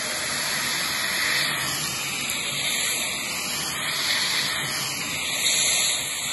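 Stick vacuum running with its crevice tool drawing air along the seam between upholstered seats: a steady, loud rushing hiss.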